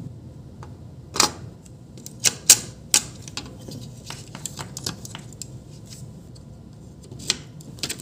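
Sharp metallic clicks and taps from a desktop motherboard's LGA CPU socket as an Intel processor is seated and the metal load plate and retention lever are closed over it. There are a few loud clicks in the first three seconds, then lighter ticks.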